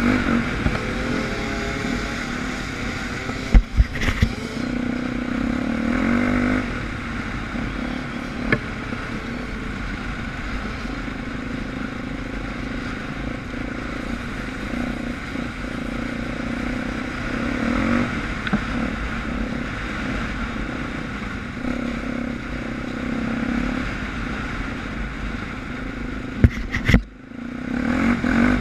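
Suzuki DR350's single-cylinder four-stroke engine running off-road, its pitch rising and falling with the throttle. Sharp knocks about three seconds in and again near the end.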